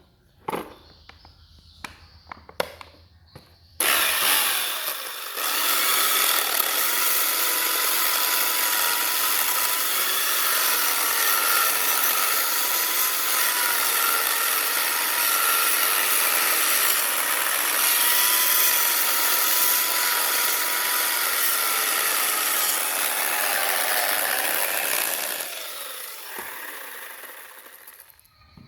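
Power tool cutting into wood, a steady hissy cutting noise with a faint wavering whine, starting abruptly about four seconds in and fading out near the end. A few light knocks come before it.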